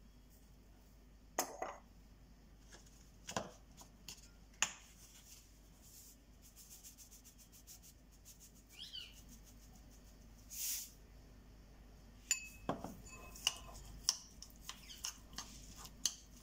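Metal spoon clinking and scraping against a ceramic bowl as tuna filling is stirred, in scattered light knocks. About halfway through, a quick run of light taps as seasoning is shaken from a small container.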